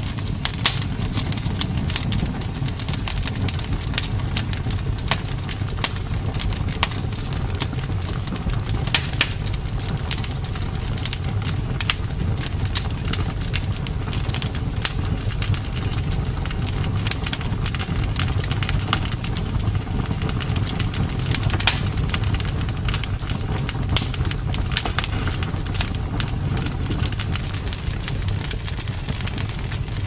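Wood fire crackling in a fireplace: a steady low rumble of the flames with frequent sharp pops and snaps, a few of them louder than the rest.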